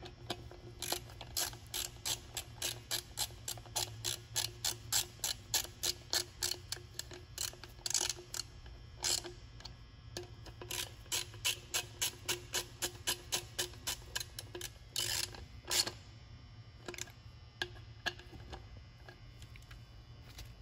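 Hand ratchet clicking steadily, about two to three clicks a second, as a fastener is worked; the clicks pause briefly about halfway and stop a few seconds before the end.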